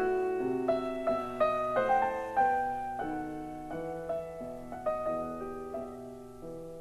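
Solo piano music: single notes and chords struck one after another, each ringing and fading, growing softer toward the end.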